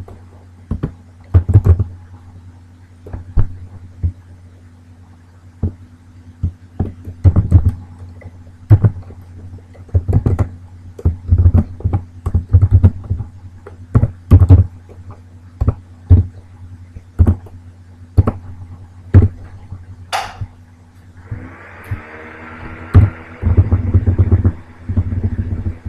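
Computer keyboard keys being typed in irregular bursts, each keystroke a sharp click with a dull low thud, over a steady low electrical hum. A hiss joins in for the last few seconds.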